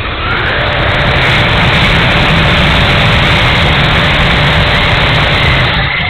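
The 70mm electric ducted fan of an E-flite F-16 model jet running at high throttle, heard from on board the airframe as a loud, steady rush of fan and wind noise with a faint steady whine.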